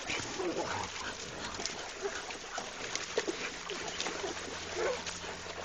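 Catch dogs holding a caught wild hog in shallow creek water: short whines and grunts from the animals, with splashing.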